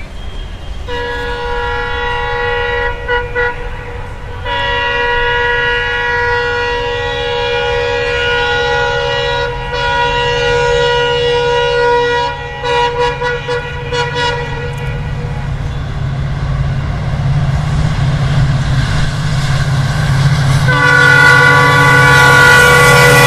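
Indian Railways diesel locomotive sounding its horn in long, repeated blasts as it approaches, then its engine rumble growing louder as it nears, with another horn blast just before it passes.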